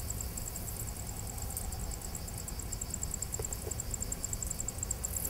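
Insects chirping in a fast, even, high-pitched pulse of about ten a second, over a low steady rumble.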